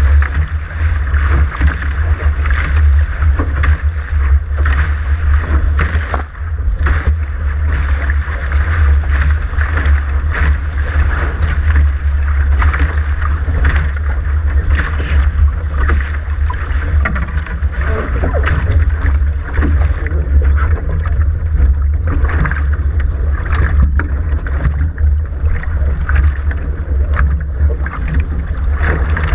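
Water rushing and splashing along the hulls of a Dart catamaran sailing at speed, over a steady heavy rumble of wind buffeting the hull-mounted camera's microphone.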